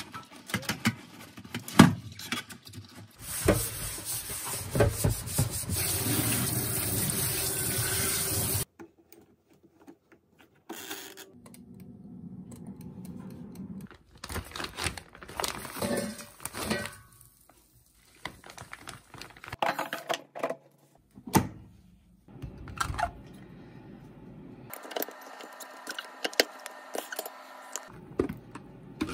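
Tap water running into a stainless steel kitchen sink for about five seconds while an air fryer basket is washed by hand, with knocks of the basket against the sink before it. The water stops abruptly, and scattered clicks and clatters of kitchen handling follow.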